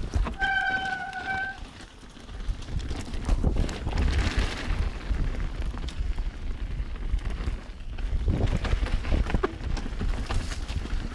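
Mountain bike riding down a wet, muddy trail: the tyres rumble over dirt and roots while the bike rattles and clicks. Near the start, a disc brake squeals with a steady whistling tone for about a second and a half.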